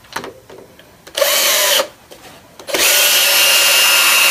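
Cordless drill-driver driving 40 mm wood screws into a wooden disc: a short burst about a second in with a rising whine, a pause, then a longer steady run from a little under three seconds in.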